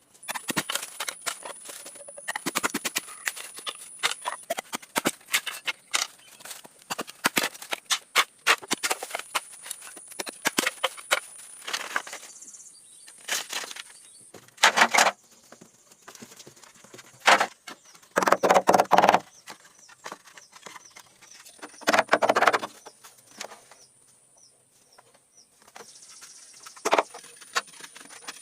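An irregular run of clicks and knocks, with a few longer rasping scrapes about halfway through and near three-quarters, over a faint steady high tone.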